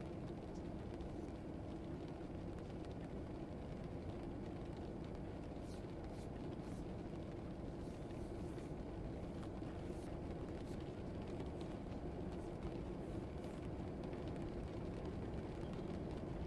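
Classroom ambience track: a steady low rumble of background noise with a few faint clicks.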